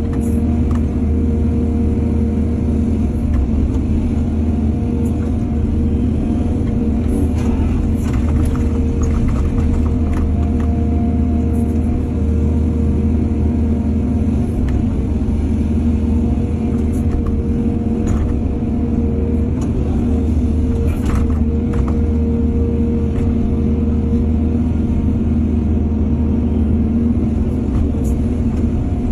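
Excavator's diesel engine running steadily at a constant pitch. A few short knocks and clanks stand out above it, a couple about a quarter of the way in and one past two-thirds.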